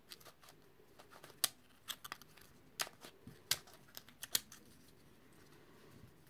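QYToys Skewb twisty puzzle being turned by hand: an irregular run of sharp plastic clicks as its corner pieces rotate and snap into place, thinning out after about four and a half seconds.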